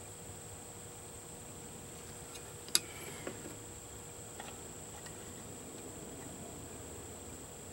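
Small metal parts of an outboard water pump being handled on the lower unit: one sharp metallic click with a short ring about three seconds in, then a few faint taps. A steady high-pitched tone runs underneath.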